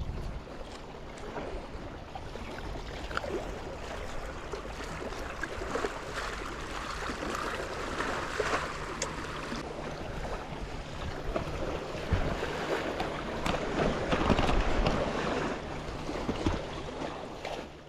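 Sea water washing and splashing, swelling louder twice, with wind on the microphone, scattered small clicks and a faint low steady hum underneath.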